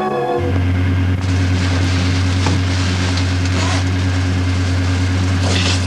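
Steady low drone of airliner engines as heard inside the cabin, with a hiss that swells briefly now and then. A music cue ends about half a second in.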